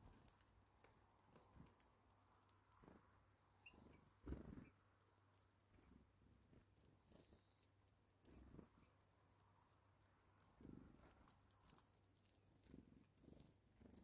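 Birds feeding at a seed tray: faint pecking and clicking on sunflower seeds, soft thumps and wing flutters as Eurasian bullfinches come and go, and a few short, high chirps. All of it is quiet.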